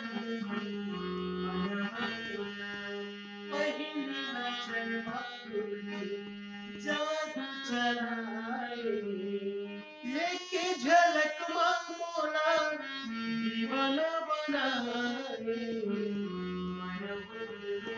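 A hand-pumped harmonium plays sustained chords, with a man singing a Chhattisgarhi song over it. His voice comes in about three and a half seconds in.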